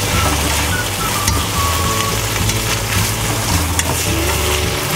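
Pork and eggplant sizzling in a frying pan as they are stir-fried in a curry-flavoured sauce, with a wooden spatula stirring and scraping through them. The sizzle is steady, with a few short scrapes or knocks of the spatula.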